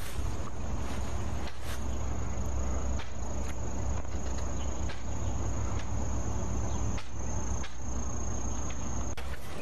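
A steady, high-pitched insect trill, dropping slightly in pitch about three-quarters of the way through, over a constant low rumble and a few faint knocks.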